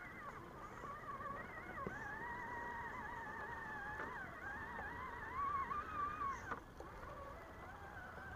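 Electric motors and gear drivetrains of RC scale crawler trucks whining as they crawl over rough ground, the pitch wavering up and down with the throttle. The whine cuts off abruptly about six and a half seconds in, and a fainter whine carries on after.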